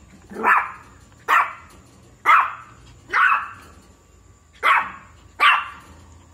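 Shih Tzu puppy barking: six short, sharp barks about one a second, with a short pause before the last two.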